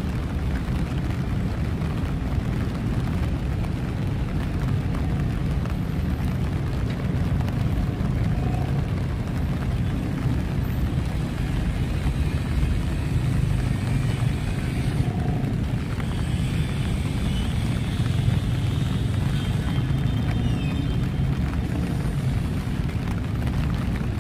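City traffic rumbling steadily in the rain, a deep continuous drone of passing vehicles under an even hiss of rain and wet road.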